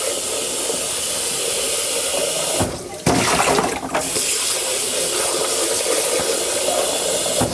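Kitchen tap water running into a blender jar as it is rinsed out, a steady rush that breaks off briefly about two and a half seconds in and then starts again.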